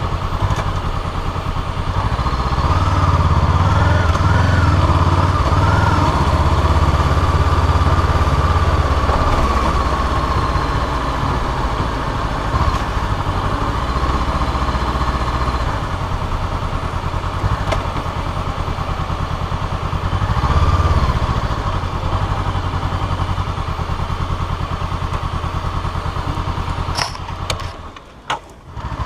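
Honda CBR500R's parallel-twin engine running close to the tank-mounted microphone with wind noise, rising in pitch a few times as the bike accelerates. Just before the end the sound drops away sharply for about a second.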